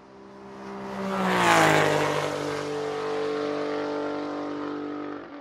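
Fly-by sound effect of an engine swooping past: it swells to a peak about a second and a half in as its pitch drops, then holds a steady lower hum that falls away near the end.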